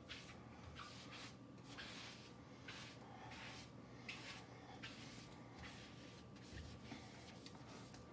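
Faint scrubbing of a soapy sponge over a white enamel stovetop, in short irregular back-and-forth strokes.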